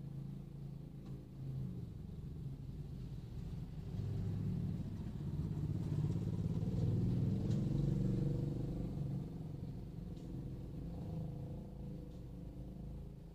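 Small motorcycle engine passing close by, heard from inside a car: it grows louder from about four seconds in, peaks around the middle, then fades, over a low, steady engine hum.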